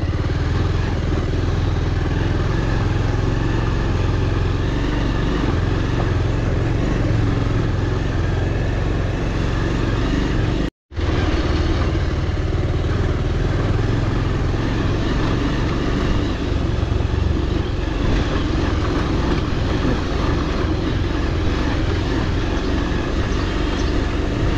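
Motorcycle engine running steadily while the bike is ridden over a rough dirt road. The sound cuts out completely for a split second about eleven seconds in.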